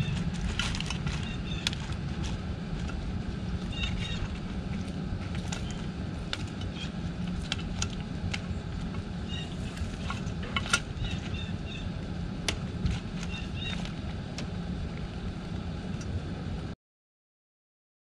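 Fox squirrel cracking and chewing peanut shells close to the microphone: scattered sharp clicks and crunches over a steady low outdoor rumble, with small birds chirping now and then. The sound cuts off near the end.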